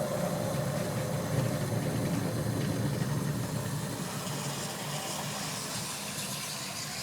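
Bialetti Mukka Express stovetop cappuccino maker on the heat, its water boiling with a steady rumbling hiss as it pushes up through the coffee, before the milk-frothing spray begins. A thin steady tone fades out in the first second or so, and the rumble eases off gradually.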